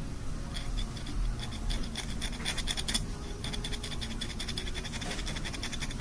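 Dental instrument scraping over teeth during a cleaning, a rapid run of rasping strokes starting about half a second in, recorded binaurally close to the ears.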